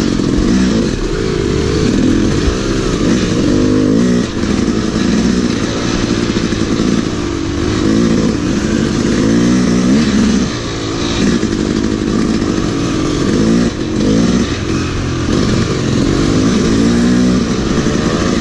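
Dirt bike engine heard from on board while riding a twisty trail, revving up and dropping back again and again, with a few brief throttle-offs.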